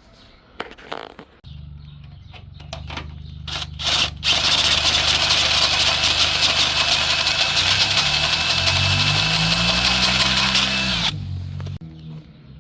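A cordless drill with a step bit running and cutting through steel. The motor hums steadily, then a loud, hissing cut with a thin whine sets in after about four seconds. The motor pitch sags and recovers under load before it stops abruptly near the end. It runs on a fresh battery and a new step bit.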